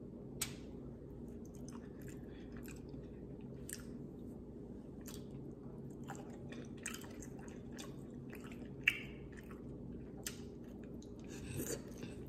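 Close-up chewing of seafood-boil food in butter sauce, with wet mouth smacks and scattered sharp clicks; the sharpest comes about half a second in and another about nine seconds in. A faint steady hum sits beneath.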